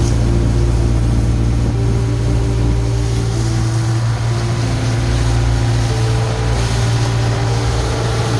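A boat's engine running steadily under the rush of water and wind. A slow melody of held notes, changing about once a second, plays faintly over it.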